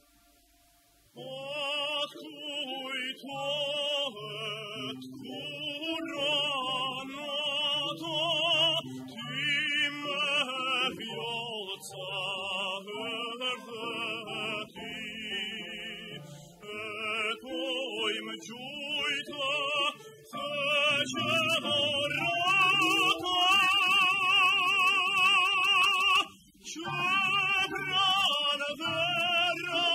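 Recorded vocal music: a trained singing voice holding long notes with wide vibrato. It starts about a second in, after a moment of near silence, and breaks off briefly about 26 seconds in.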